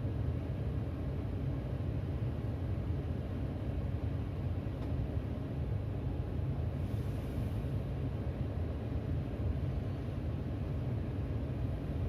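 Steady low outdoor rumble of city background noise, with no level-crossing bell ringing.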